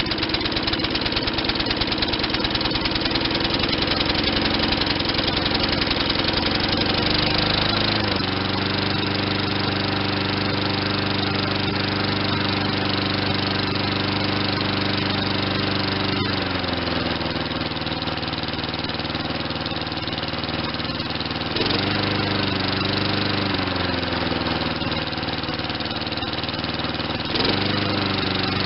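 The 5 hp Tecumseh single-cylinder engine of a Craftsman push mower runs on a newly fitted aftermarket carburetor, real rich just after a cold start. Its speed steps up about eight seconds in, drops around the middle, rises and falls again, and picks up once more near the end.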